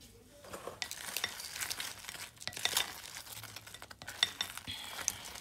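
Utensil stirring sauce-covered cauliflower wings in a glass bowl: irregular scraping and clinking against the glass, with wet, sticky sounds from the sauce.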